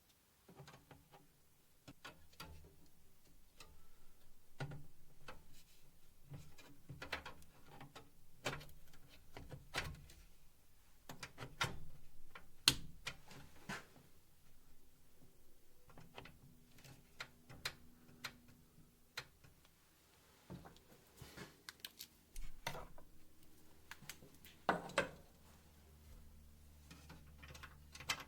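Scattered small clicks and knocks of computer hardware being handled inside a desktop PC case, with a faint low hum setting in about two-thirds of the way through.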